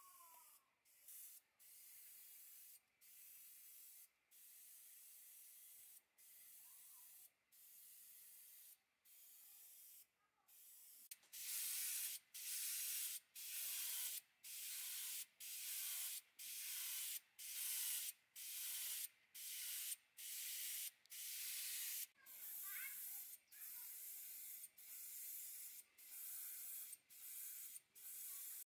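Paint being sprayed in short, repeated hissing bursts, about one a second, with brief pauses between them; the bursts become louder partway through.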